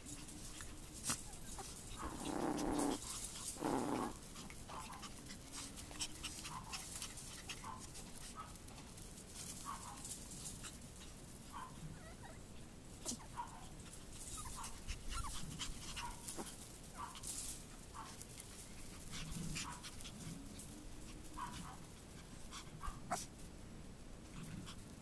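Chihuahua puppies playing, with scattered short, high yips and squeaks and two louder sounds about two to four seconds in, over light rustling and clicks.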